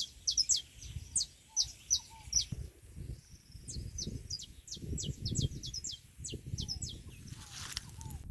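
Birds chirping: a quick, irregular series of short, high, falling chirps, with a few lower falling notes from another bird, over a low rumble.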